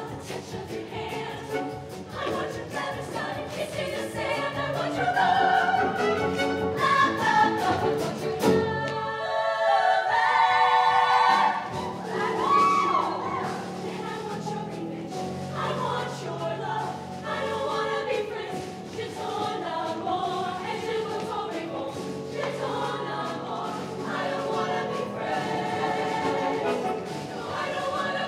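Show choir singing with a live band of drums, keyboard and horns. About eight seconds in the band drops out and the voices carry on alone for a few seconds before the band comes back in.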